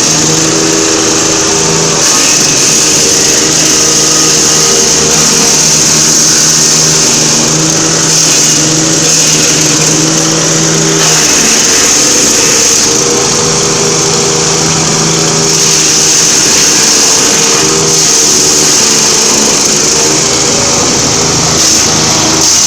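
GS120 wood chipper's small engine running steadily, with a strong high hiss and a pitch that shifts slightly now and then.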